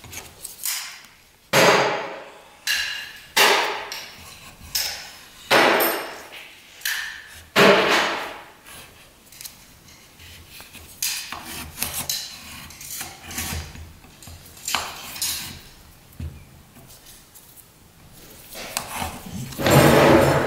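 Short scraping strokes of a small metal tool along the lead cames of a leaded-glass panel, gouging out crumbling old putty. There are about seven strong strokes, then fainter ones. Near the end a longer rubbing sound begins.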